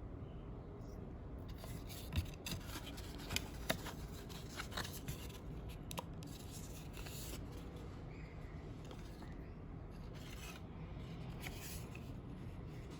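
Packaging being handled and opened by hand: rustling and scraping in bursts, with a few sharp clicks in the first half.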